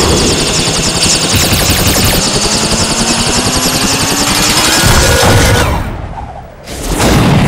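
Loud, fast mechanical clattering with a whine rising slowly in pitch, as a spinning ring machine runs up. It thins out about six seconds in, and a second loud rushing surge comes near the end.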